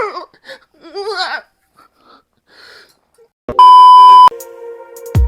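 A loud, steady electronic beep lasting under a second, about three and a half seconds in. Before it come two short, wavering vocal noises from a person.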